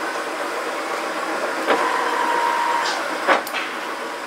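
Summit 24 x 80 manual lathe's headstock running with a steady mechanical hum, while its speed levers are shifted to a higher spindle speed. A click about one and a half seconds in starts a steady whine lasting about a second, and a sharp clunk comes just after three seconds.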